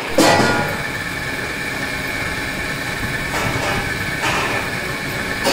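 Steady mechanical hum with a high, even whine, from machinery running. There is a sharp knock just after the start and a couple of fainter clicks later.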